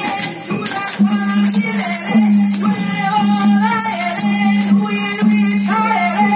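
Traditional Burmese music for a marionette dance: a wavering melody over a repeated low note, with light percussion ticking through it.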